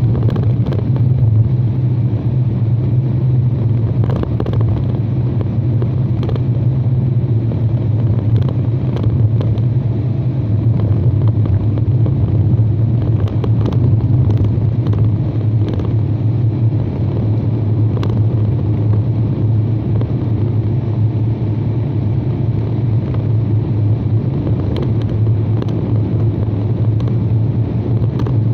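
Car driving at road speed heard from inside the cabin: a steady low drone of engine and tyre noise on asphalt, with a few light knocks now and then.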